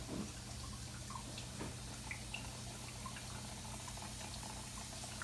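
Reef aquarium water trickling, with scattered small drips over a steady low hum.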